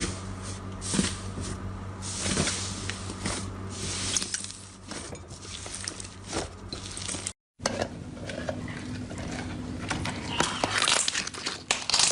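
Slime being squeezed and poked by hand, giving wet crackling, clicking squelches over a low steady hum. The sound drops out briefly about seven seconds in, then more squishing follows.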